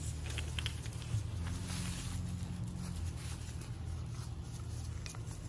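Faint rustling and light ticks as a puppy moves through fallen leaves, over a steady low rumble.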